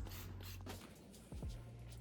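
Soft background music with low sustained bass notes, with a few faint light clicks of objects being handled.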